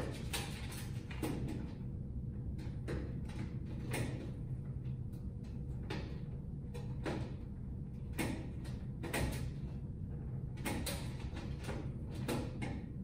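Irregular clicks, taps and light knocks of hands working parts and wiring inside a sheet-metal fluorescent troffer housing, fitting a motion sensor, over a steady low hum.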